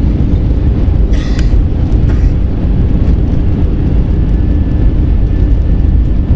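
Airbus A320 cabin noise on descent: a steady, loud low rumble of the jet engines and airflow heard from a seat beside the wing. A short, higher sound cuts in briefly about a second in.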